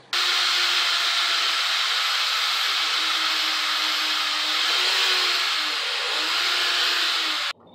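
Corded electric drill running steadily while drilling holes through a plastic fender flare. The motor's pitch dips briefly twice midway, and the sound cuts off abruptly near the end.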